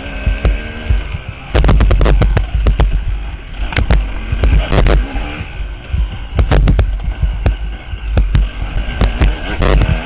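KTM dirt bike engine being ridden hard, its revs rising and falling with the throttle, heard through an onboard camera with heavy wind rumble and frequent sharp knocks and cracks from the rough track.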